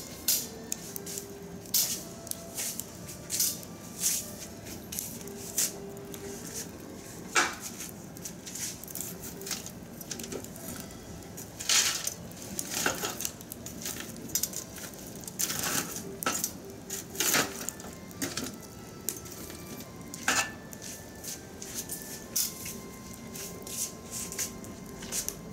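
Fire burning in a metal bucket grill, crackling with irregular sharp pops and snaps.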